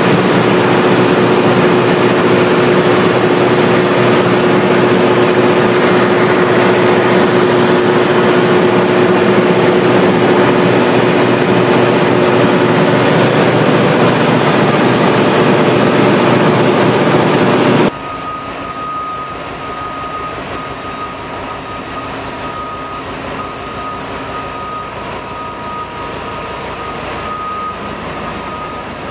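Caterpillar 797 haul-truck engine running loudly and steadily, with a steady low hum through the noise. After about 18 seconds it cuts abruptly to a quieter steady rumble in a large hall, with a repeated high beep.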